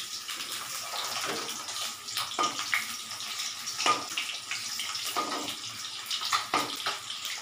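Boiled eggs coated in turmeric and salt shallow-frying in oil in a steel kadai: a steady sizzle, with a few clicks of a metal spatula turning the eggs against the pan.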